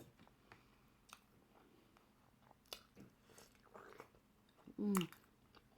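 Close-miked chewing of crab meat: faint, scattered wet smacks and small clicks, with a short hummed "mm" of enjoyment about five seconds in.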